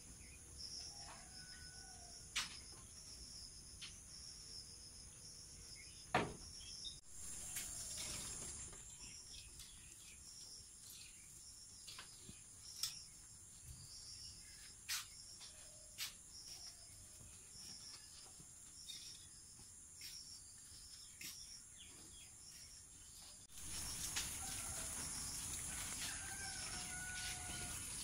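Outdoor ambience: a steady high insect drone with a regular run of short, cricket-like chirps and a few faint bird calls. Several sharp clicks stand out, and the background grows louder and noisier near the end.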